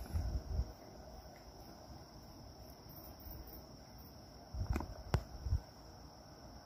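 Night insects chirring in a steady high drone, with a few low thumps about half a second in and two sharp clicks near the five-second mark.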